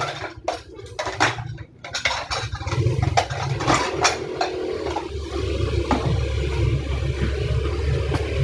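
Dishes and cutlery clinking and clattering as plates are washed and stacked, a string of sharp knocks in the first half, with a steady low hum underneath through the second half.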